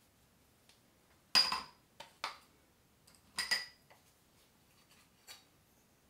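Make-up tools and containers clinking as they are handled and set down on a hard surface: a sharp ringing clink about a second in, two lighter ones just after, a double clink about halfway through, and a faint one near the end.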